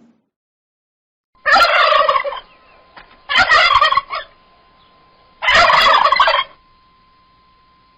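Turkey gobbling three times, each gobble a rapid rattling call about a second long.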